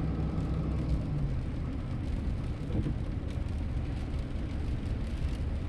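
Car interior noise while driving in the rain: a low engine and road rumble under a steady hiss. The rumble eases a little about a second in.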